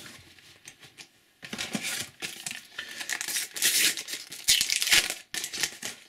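A paper sticker packet being torn open by hand, a run of rustling, crinkling tears over several seconds, the loudest near the end.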